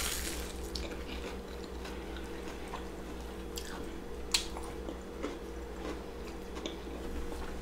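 Biting into and chewing a deep-fried, beer-battered king crab leg: a crunch of the batter at the start, then quiet chewing with a few mouth clicks, the sharpest about four seconds in. A faint steady hum runs underneath.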